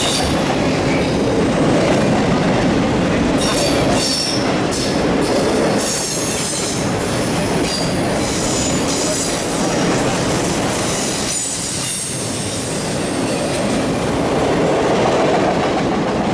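CSX autorack freight cars rolling past on steel rails with a steady loud rumble. High-pitched wheel squeal comes and goes through the middle.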